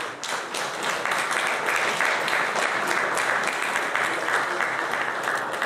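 Audience applauding, many hands clapping at once; the applause sets in at the start and begins to die away near the end.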